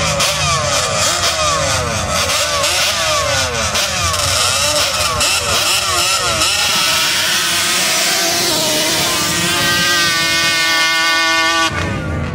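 Sand-drag ATV engines revving hard at the starting line, their pitch swooping up and down again and again. About eight seconds in, one engine holds a steady high pitch at full throttle, then the sound cuts off abruptly near the end.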